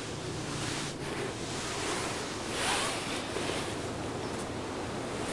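Steady outdoor hiss of moving air on a handheld camcorder microphone, with a brief louder rustling swish about two and a half seconds in as the camera is carried.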